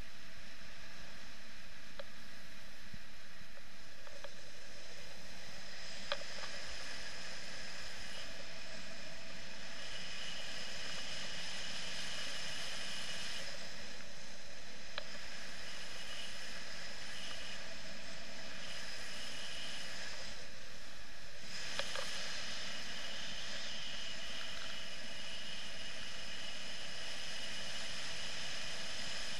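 Steady rush of airflow over a paraglider's riser-mounted camera in flight, with a few light clicks.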